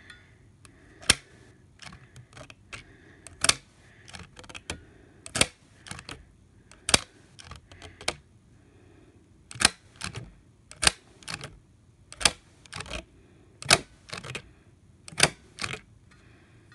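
Stapler-style manual handheld sewing machine squeezed stitch by stitch through paper cardstock, each squeeze a sharp click, with fainter clicks between. About nine loud clicks come unevenly, roughly one every second to second and a half.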